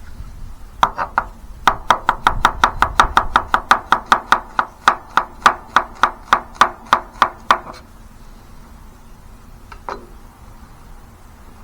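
Knife chopping on a cutting board: a quick run of about two dozen sharp, even knocks, three to four a second, that stops about seven and a half seconds in, then one more knock near the end.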